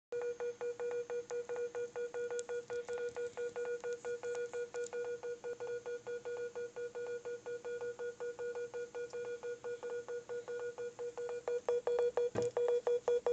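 Smartphone sounding its charger-connection beep over and over, about five short beeps a second: a faulty charging port keeps making and breaking contact with the cable. The beeping gets louder near the end, then stops abruptly.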